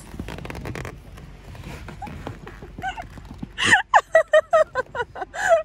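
A person laughing in a quick run of short, evenly spaced bursts, starting a little past halfway after a quieter stretch of faint handling noise.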